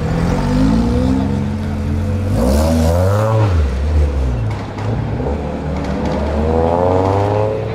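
Lotus Elise sports car engine pulling away under throttle. Its pitch climbs to a peak about three seconds in, drops, then climbs again toward the end.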